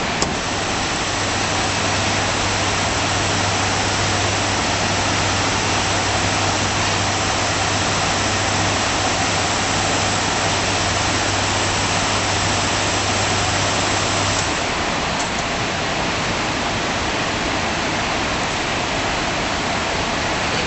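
Automatic CNC bandsaw running: a steady machine noise with a low hum that starts just after a click at the beginning and cuts off about two-thirds of the way through, while the noise carries on.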